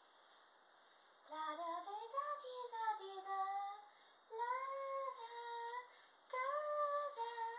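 A woman singing on her own in a high voice, unaccompanied, in three phrases of long held, gliding notes that start about a second in.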